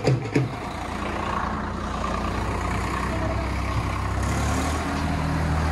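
Swaraj tractor diesel engines idling steadily, a low even hum; about four seconds in the engine note changes as another engine tone joins.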